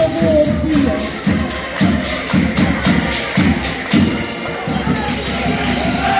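Portuguese folk dance music played live, with a steady drum beat about twice a second and a tambourine-like jingle; the beat thins out near the end.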